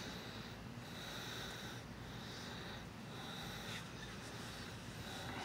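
Faint breathing close to the microphone, swelling and fading about once a second.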